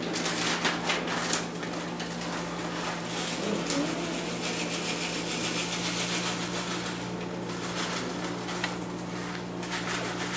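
A steady mechanical whir with a low hum, like a small motor or fan running, with a few light knocks over it.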